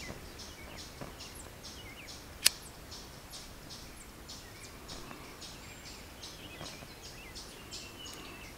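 A disposable lighter gives one sharp click as it is struck, about two and a half seconds in. Behind it is outdoor ambience with birds and a regular high chirping pulse about three times a second.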